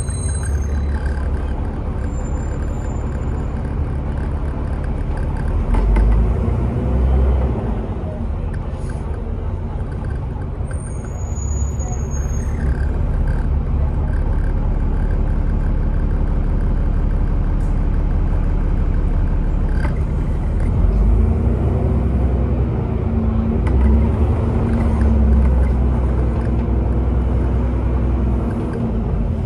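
Bus engine running with road rumble, heard from inside the bus, its note shifting as the bus changes speed. There are a couple of brief high-pitched squeals near the start and about eleven seconds in.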